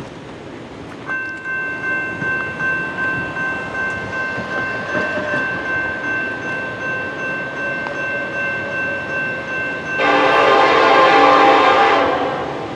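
A railroad crossing bell rings steadily, pulsing about two to three times a second, as a train approaches. About ten seconds in, the lead Norfolk Southern EMD SD70ACe locomotive sounds its horn in one loud blast of about two seconds.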